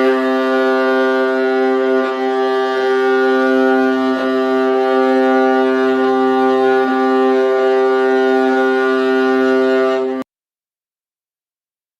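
Viola bowing one long, steady low note for about ten seconds, then stopping abruptly.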